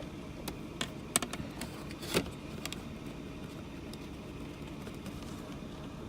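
A few light clicks and knocks of a plastic speaker grill and trim being handled, the loudest about a second and about two seconds in, over a steady low hum.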